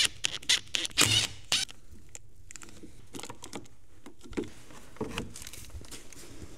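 A cordless drill-driver running in a few short bursts in the first second and a half, backing a screw out of a welding machine's back panel. After that come scattered light clicks and rustling as the plastic panel and the cable are handled and pulled away.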